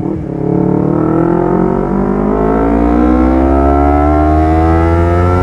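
Honda CBR250RR engine breathing through an R9 GP series stainless full-system exhaust, pulling hard under acceleration: after a short dip in pitch at the start, the revs climb steadily and the exhaust note rises with them.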